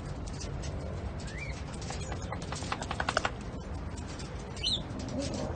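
Rustling with a quick run of sharp clicks and two brief high chirps; near the end a cat starts a low, wavering yowl.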